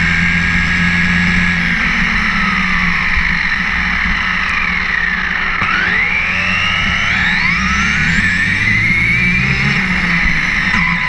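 1/10-scale RedCat RC monster truck driving on asphalt: a motor whine that rises and falls in pitch as the truck speeds up and slows, over tyre noise.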